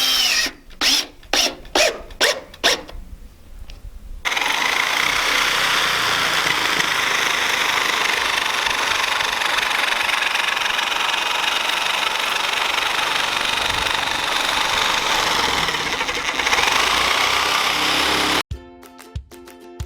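About six hammer blows on sheet-metal siding in quick succession, forming the bent lip of the metal. A long, steady, noisy sound follows, and guitar music begins near the end.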